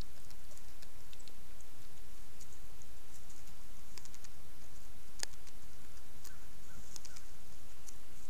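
Wild turkeys stepping and pecking in dry leaf litter: scattered light clicks and rustles over a steady low hum, with one sharper click about five seconds in.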